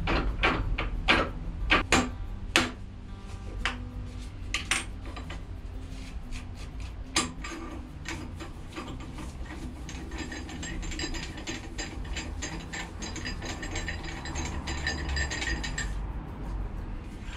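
Metal-on-metal clicks and knocks from a vertical mill head being taken apart by hand as the spindle is worked loose. A string of sharp knocks comes in the first few seconds. Later a long run of rapid, fine clicking follows, like a ratchet being turned.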